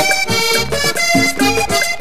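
Vallenato-style music: a diatonic button accordion plays an instrumental passage with no singing, over bass and steady percussion.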